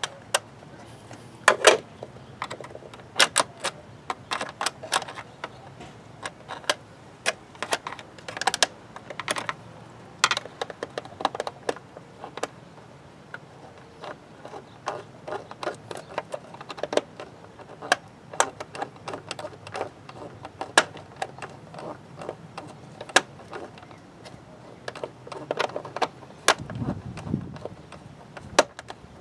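Irregular clicks, taps and rattles of a screwdriver and hands working on a car's plastic air-filter housing, with a dull thump near the end.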